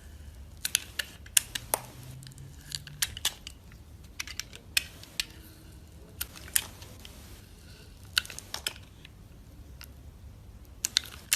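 Dry soap being cut with a knife: irregular crisp clicks and cracks, some in quick clusters of two or three.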